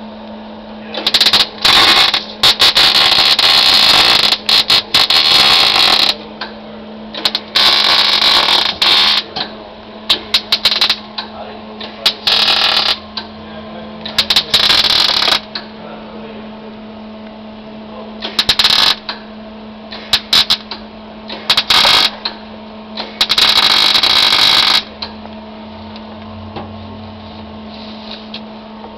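Welding new steel floor pans into a car body: the welding arc crackles in repeated bursts, some short tacks and some runs of a few seconds, with a steady low hum underneath.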